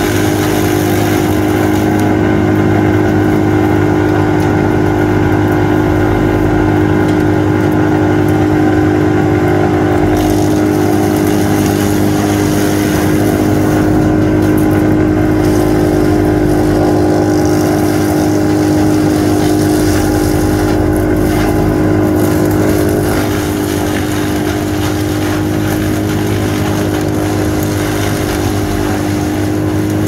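Bandit Intimidator 12XP wood chipper with its 120 hp Cat diesel engine running, a loud steady drone, as pine brush is fed into it and chipped.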